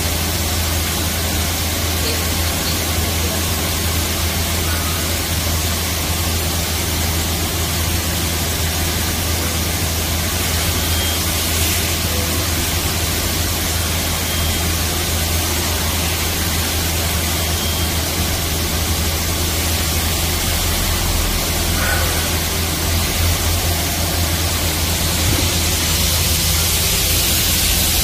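Mazak VARIAXIS i-700 5-axis vertical machining center running: a steady hiss over a constant low hum from inside the machine enclosure. The hiss gets stronger near the end.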